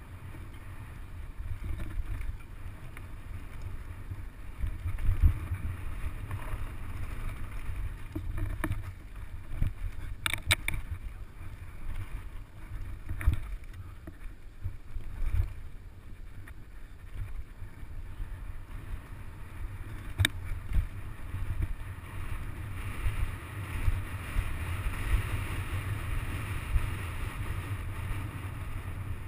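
Mountain bike descending a dirt forest trail: a steady low rumble of the tyres and wind on the helmet camera's microphone, with sharp knocks and rattles of the bike over rocks and roots now and then, the loudest about five seconds in.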